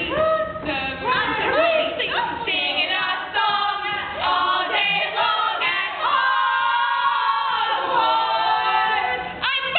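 Several voices singing a cappella together, in overlapping, repeating sung parts.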